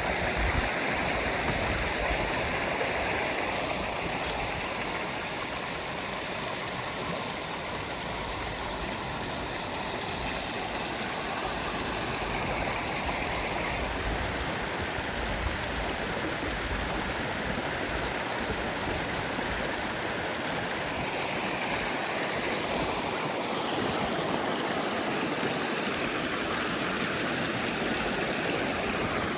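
Rainwater runoff rushing steadily along a swollen stream.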